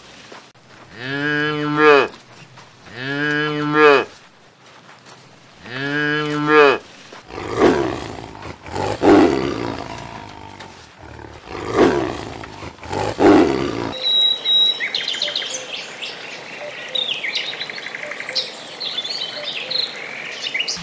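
A cow mooing three times, each moo a long call about a second and a half, then a tiger growling and roaring in four rough calls. In the last seven seconds there are high chirps and squeaks.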